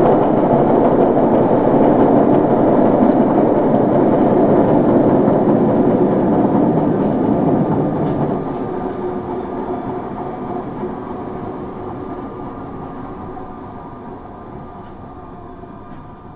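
Running noise of a Tokyo Metro 01 series subway car, a car with abnormal noise such as wheel flats that all but hides the faint sound of the motor brushes. The noise is loud and steady, then fades away steadily from about halfway as the train slows, with faint steady tones showing through.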